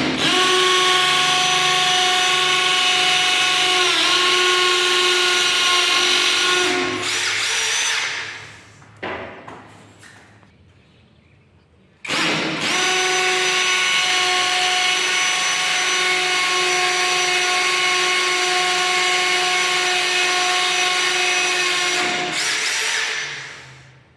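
Tanzu cordless impact drill running at full speed in two long runs with a steady high whine. The pitch dips briefly about four seconds in, and each run winds down as the trigger is released. A short blip of the motor falls between the runs.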